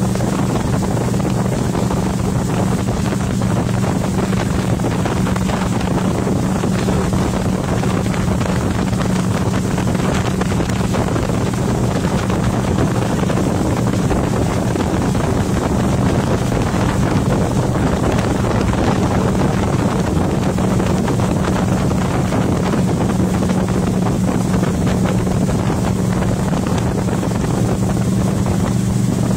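Tow boat's engine running steadily at speed, a low even drone that holds constant, mixed with wind buffeting the microphone and the rush of the boat's wake.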